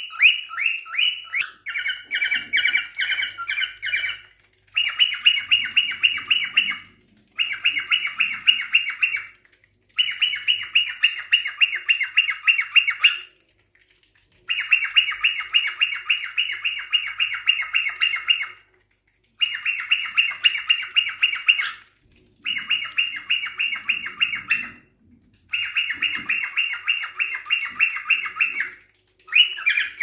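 Cockatiel calling in fast runs of short, sharp chirps, several a second, in bouts of two to four seconds broken by brief pauses.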